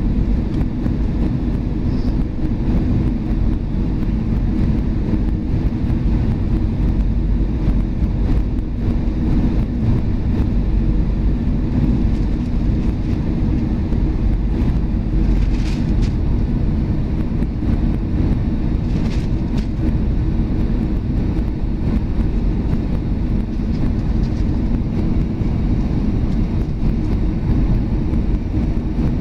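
Cabin noise of an Airbus A320 on final approach, heard from a window seat beside the engine: a steady low rumble of engines and airflow. Two brief higher-pitched hisses come about halfway through.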